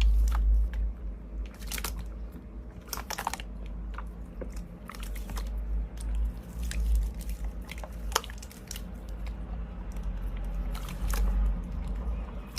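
Slime being squeezed and worked by hand, giving irregular crackling clicks and wet pops.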